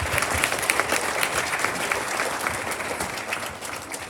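An audience clapping after a student's speech, with dense claps that fade toward the end.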